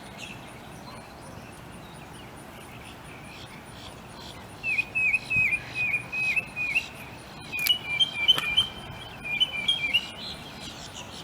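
A small songbird calling: a run of about eight quick, high chirps about halfway through, then a faster two-pitched twittering series a second later.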